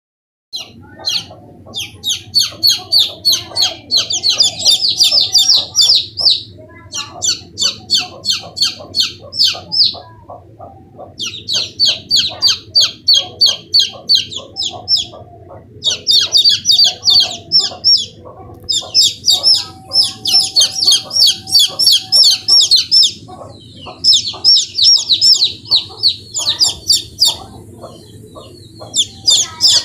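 Desi chicken chicks peeping: rapid high-pitched cheeps, several a second, in runs of a few seconds broken by short pauses.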